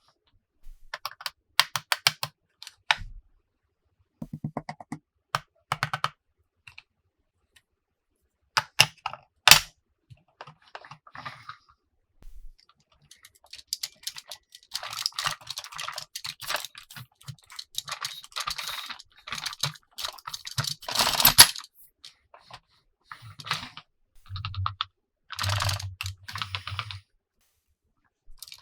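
Toy packaging being opened and handled: irregular bursts of rapid plastic clicks and crinkling. A low buzz comes in several short pulses a few seconds before the end.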